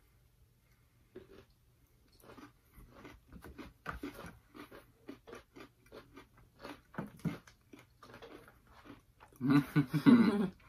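Two people chewing bites of a milk chocolate bar with cookie pieces inside: soft, irregular crunches and mouth sounds, several a second. Near the end comes a short, louder voiced sound.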